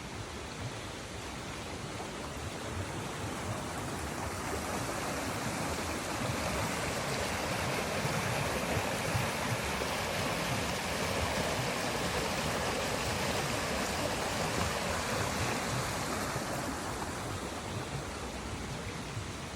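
River water flowing: a steady rushing that swells louder through the middle and eases off again near the end.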